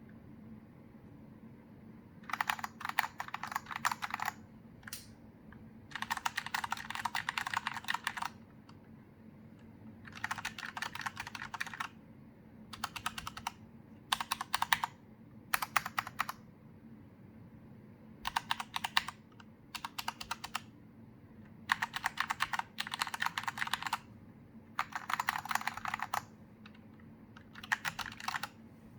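Typing on a Corsair K70 RGB Rapidfire mechanical keyboard with silent linear switches, fitted with a mix of stock and HyperX double-shot PBT keycaps, some keys with rubber O-rings: about a dozen short bursts of rapid keystrokes, each a second or two long, with pauses between.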